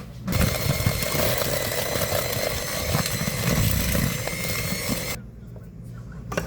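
Electric mixer running steadily as it beats cookie batter of creamed butter, sugar and egg, then switching off about five seconds in.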